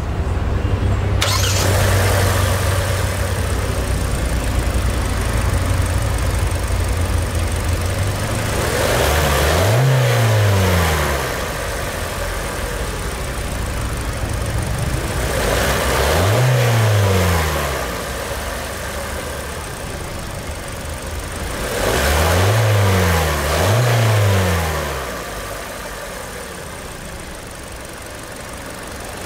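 Hyundai Tucson's 2.0-litre four-cylinder engine idling at a raised speed, then revved in four short blips that each rise and fall, the last two back to back. It then settles to a lower, quieter idle near the end.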